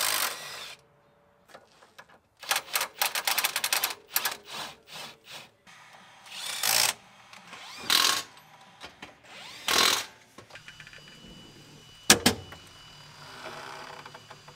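Hand and power tools on a Honda Civic's front suspension during a coilover install: a run of rapid ratchet-like clicking, then three short bursts of a power tool about a second and a half apart, and a single sharp metallic knock near the end.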